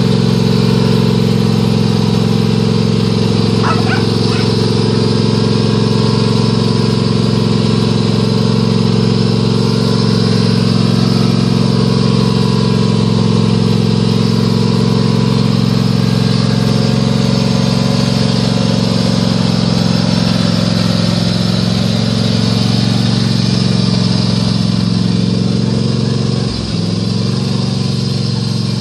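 Honda riding lawn mower engine running steadily while mowing grass, a steady low hum that eases slightly near the end as the mower moves away.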